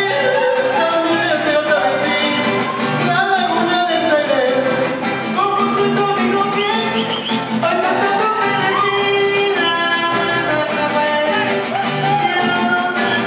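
Live huapango (son huasteco) music: a violin playing gliding melodic lines over strummed guitars, with a singing voice.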